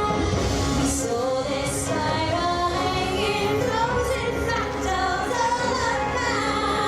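Show soundtrack music with a woman singing a melody over it, running continuously.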